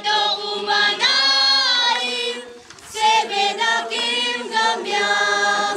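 A group of young female voices singing a song together, sustained sung lines with a short break a little over two seconds in before the next phrase.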